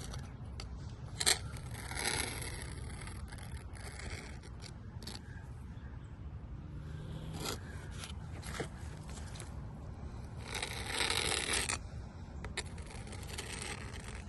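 A caulk spreader scraping along a fresh bead of caulk to smooth it, in faint strokes with a few sharp ticks, and one longer, louder scrape about eleven seconds in.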